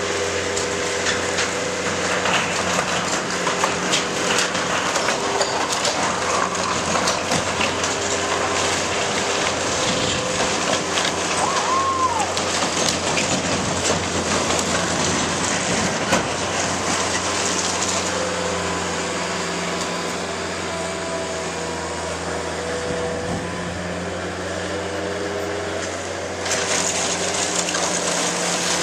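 Bobcat 753 skid-steer loader's diesel engine running steadily, with scattered crunching, clattering and knocks of corrugated sheet metal and timber as the shed is torn down.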